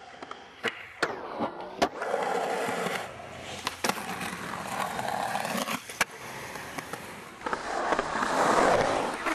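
Skateboard wheels rolling on concrete, broken by several sharp clacks of the board hitting the ground; the rolling is loudest near the end.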